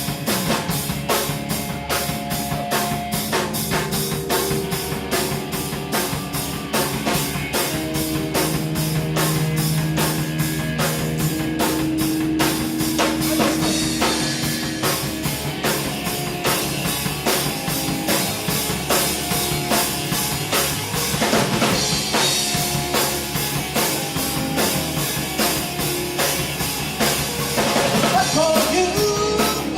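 Live rock band playing an instrumental passage: drum kit keeping a steady beat under held guitar notes, with notes bending up and down near the end.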